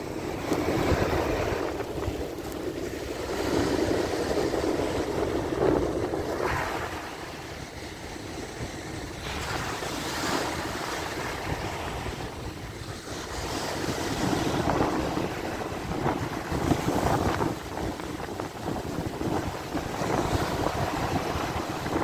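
Rough Sea of Azov surf breaking and washing up a sandy beach, surging and easing every few seconds. Wind buffets the microphone.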